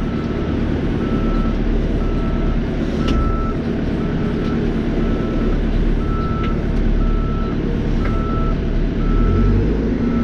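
Caterpillar 430E backhoe loader's diesel engine running steadily while its reversing alarm beeps about twice a second, a sign that the machine is backing up.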